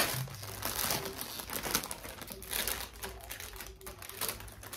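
Clear plastic bag crinkling and crackling as it is handled and pulled open around a loaf cake, in irregular bursts, the sharpest right at the start.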